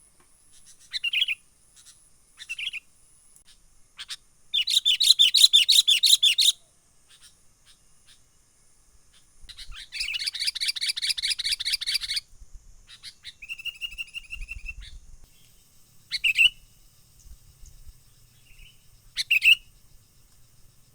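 Sooty-headed bulbul calling with short sharp chirps and two long, rapid chattering phrases of about two seconds each, then a run of quick even notes. A faint steady high whine lies under the calls.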